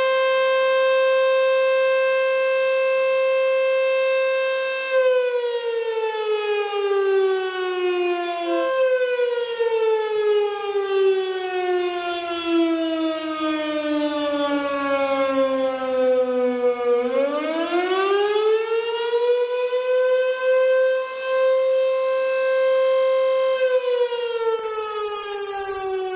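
Air raid siren wailing: a steady held tone that after about five seconds slowly winds down in pitch, sweeps back up to the held tone about seventeen seconds in, holds, then starts falling again near the end.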